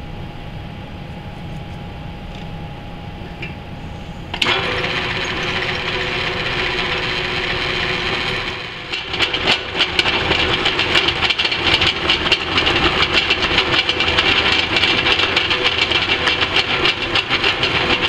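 Drill press running, with its twist drill biting into steel plate from about four seconds in. The cut gets louder from about nine seconds, turning into a dense, rattling scrape with a steady whine over it.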